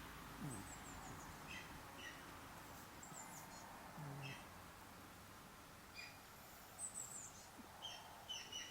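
Birds chirping faintly: scattered short, high chirps and quick falling notes every second or two, over a soft outdoor hiss.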